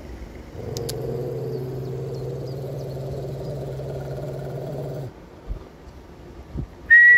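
A dog growling: one long, low, steady growl that cuts off suddenly about five seconds in. A brief high-pitched tone sounds near the end.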